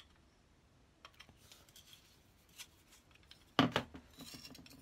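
Faint metallic clicks and scrapes from a screwdriver loosening the cap-iron screw on a rusty hand-plane blade. About three and a half seconds in, a louder clink and rattle as the steel blade and cap iron knock together.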